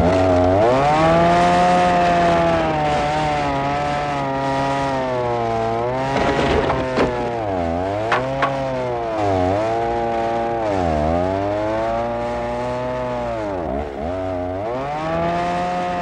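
Small chainsaw engine running just after being pull-started, its pitch sagging and picking up again several times in the second half.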